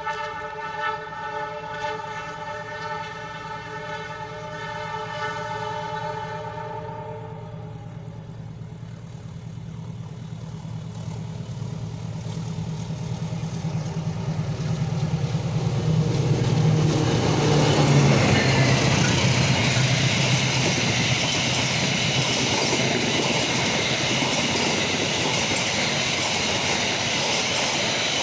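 Train horn sounding a chord of several tones for about seven seconds, then a passenger train approaching and passing close by. Its locomotive engine's drone builds to a peak about two-thirds through, followed by the steady rumble and clatter of the carriages rolling past.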